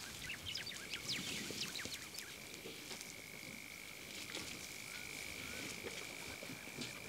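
Faint bush ambience: a steady high-pitched insect-like drone, with short bird chirps scattered through the first two seconds and a few more later.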